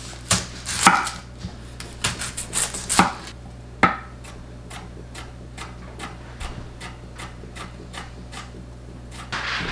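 Chef's knife slicing a red onion on an end-grain wooden cutting board: a few loud knife strikes on the wood, then a run of lighter, evenly spaced cuts, about three a second.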